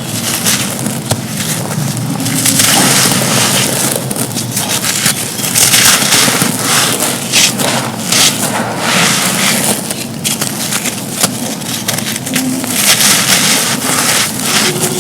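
Hands crushing soft, dry, gritty cups of dusty material: a dense, continuous crunching and crackling with a grainy hiss. The crunching swells louder in several waves.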